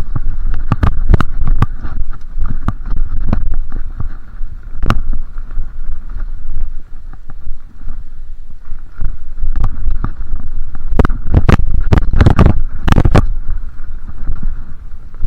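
Mountain bike running fast down a dirt trail: a steady low rumble of tyres and wind on the microphone, broken by frequent sharp clattering knocks from the bike hitting bumps, with a dense run of knocks near the end.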